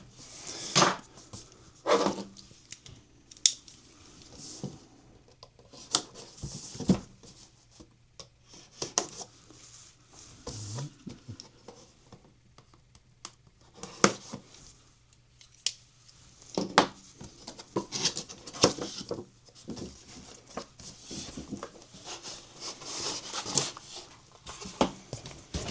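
A new RC car's retail packaging being opened and unpacked by hand: scattered clicks, taps and rustling of cardboard and plastic.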